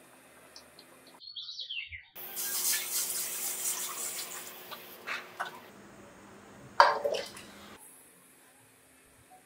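Water poured into a stainless steel cooking pot, a steady rushing splash for about two seconds. About seven seconds in comes a single sharp knock, the loudest sound.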